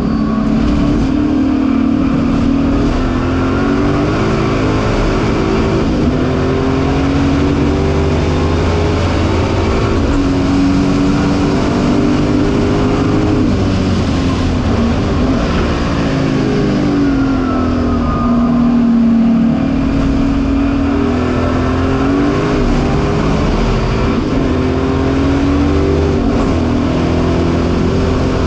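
Ford Mustang race car's V8 engine heard from inside the cabin at racing speed. It is loud and steady, with the revs climbing and falling over and over as the car is driven through the gears and corners.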